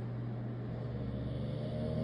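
Dog snoring: one snore that begins just under a second in and carries on for about a second and a half, over a steady low hum.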